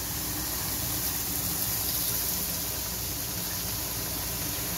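Boondi, drops of gram-flour batter, deep-frying in hot oil in a wok with a steady, even sizzle as more batter drips in.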